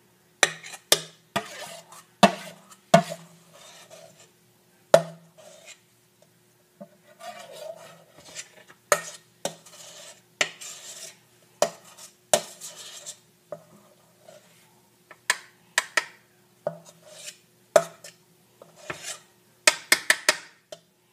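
A spoon clinking and scraping against a stainless steel mixing bowl and a metal muffin tin as batter is scooped into the cups: irregular sharp clinks with softer scraping between them, with a quick flurry of clinks near the end.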